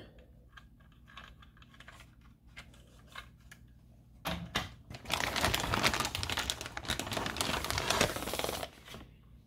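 A few faint handling clicks, then a clear plastic zip-top bag crinkling and rustling as a model train passenger car is slid into it. The crinkling starts about four seconds in and stops shortly before the end.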